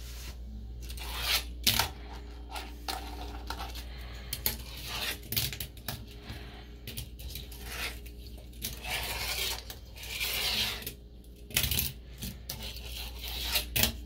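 Small homemade fingerboard clacking on a porcelain sink basin: repeated sharp clicks as the deck and wheels strike the ceramic, with stretches of rolling, scraping hiss in between.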